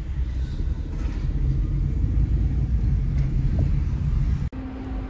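Low, steady rumble of a car driving on city streets, heard from inside the cabin. It cuts off suddenly near the end, giving way to a quieter hum.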